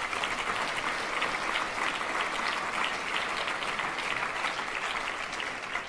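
An audience applauding: a dense, even patter of clapping that dies away near the end.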